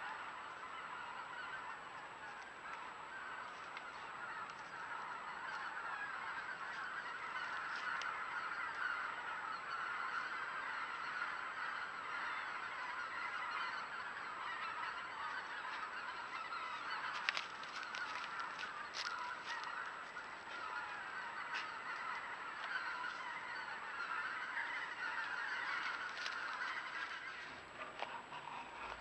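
A large flock of geese honking continuously, many birds calling over one another in a dense, unbroken din.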